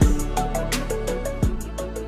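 Background music with a steady beat: kick drum hits about a second and a half apart under quick ticking hi-hats and short melodic notes.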